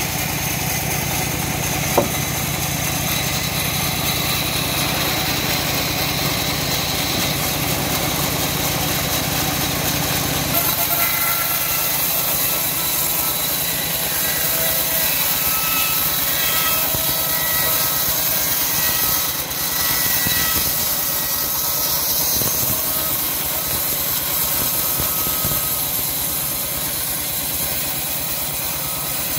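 Homemade band sawmill running steadily; from about ten seconds in, its blade saws lengthwise through a wooden slab with a continuous hiss of cutting.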